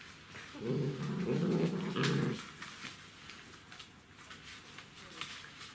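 Czechoslovakian wolfdog growling low for about two seconds, starting about half a second in.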